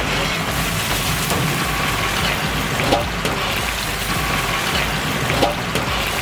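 Masala-coated pieces deep-frying in a pan of hot oil: a steady, loud sizzle.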